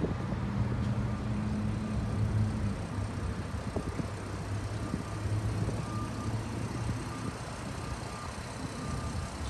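2013 Porsche Panamera engine idling steadily, a low even hum through the exhaust. It grows a little quieter over the last few seconds.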